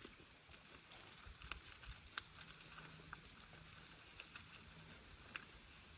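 Near silence: faint outdoor background hiss with a few scattered light clicks and a faint low hum in the middle.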